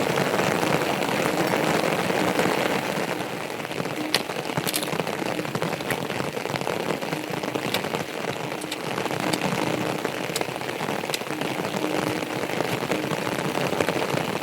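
Steady rain falling, with a sharp tick now and then, like single drops landing.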